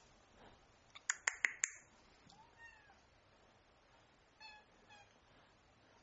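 Kitten mewing: a faint mew about halfway through, then two short, high mews about half a second apart near the end. About a second in, a quick run of four sharp clicks is the loudest sound.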